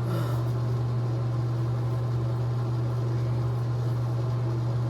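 A steady low hum with a light hiss, unchanging throughout, with a brief soft rustle right at the start.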